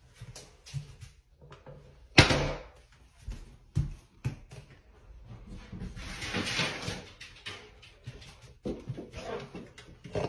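Door and handling knocks in a small tiled room: one sharp bang about two seconds in, then a few lighter knocks and a rustling swell around six seconds in as a door is pushed open.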